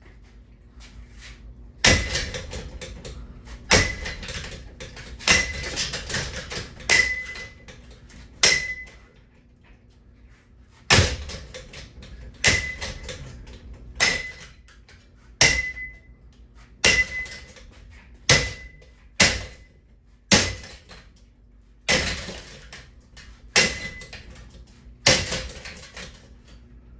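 A ceiling fan being struck hard over and over, about sixteen heavy blows roughly a second and a half apart, many leaving a short metallic ring. The blows pause briefly partway through, then resume.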